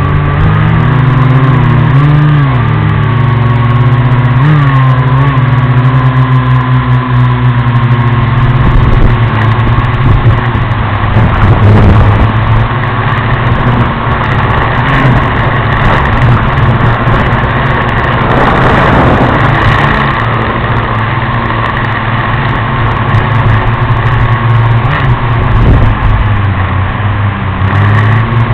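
Small FPV quadcopter's electric motors and propellers buzzing in flight, the pitch rising and falling as the throttle changes.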